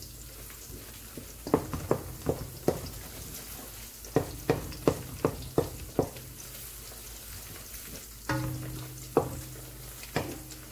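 Sliced onions sizzling as they fry in oil on high heat, stirred with a wooden spoon that knocks and scrapes against the side of a metal pot in quick runs of strokes.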